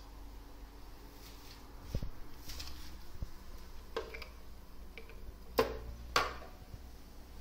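Handling noise: a few sharp clicks and light knocks from a hand working a breadboard circuit, the loudest two about half a second apart near the end, over a steady low hum.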